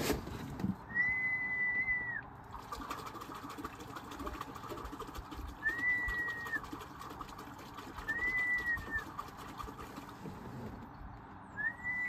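Four long whistled notes, each about a second long, held at one pitch with a slight rise at the start and a drop at the end; the last comes near the end.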